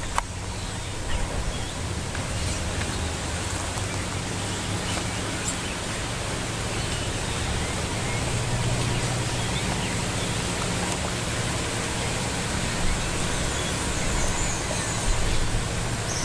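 Outdoor ambience: a steady hiss over a low, even hum, with faint bird chirps now and then.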